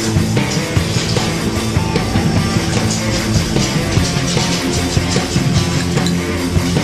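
Background rock music with a driving beat, distorted guitar and drums.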